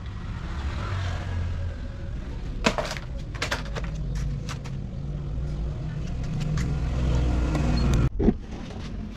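Bajaj RE auto-rickshaw's single-cylinder engine running at idle, getting a little louder toward the end, with scattered sharp clicks and knocks and one louder knock near the end.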